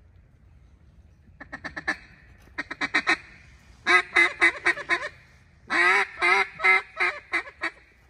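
Duck call blown in four runs of loud, quick quacks, the later runs longer and louder, calling to ducks overhead.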